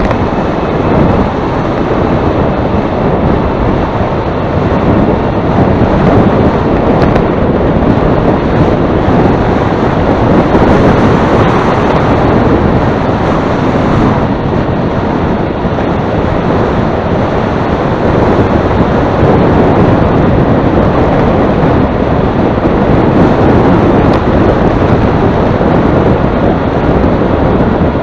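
Loud wind buffeting on the microphone, a steady rumbling rush of noise from a headwind.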